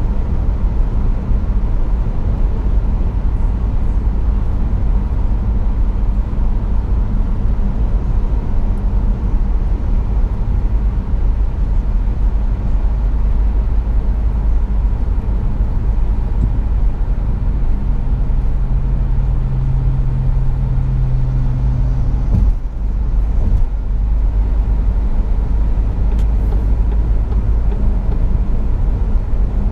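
Steady road and engine rumble inside a car's cabin at motorway speed, heaviest in the deep bass. Partway through, a low hum joins for about five seconds, and the noise dips briefly just after it ends.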